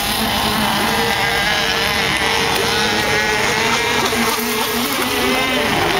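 Nitro glow-fuel engine of an RC monohull speedboat running at speed, a steady buzzing whine whose pitch wavers up and down with the throttle.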